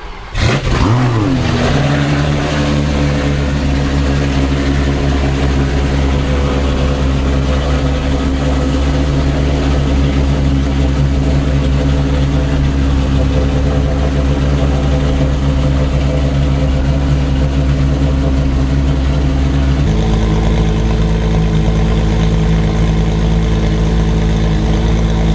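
Ferrari supercar engine giving a quick rev blip about half a second in, then idling with a steady, deep note. About 20 s in the idle note changes abruptly to a different, heavier tone and holds steady.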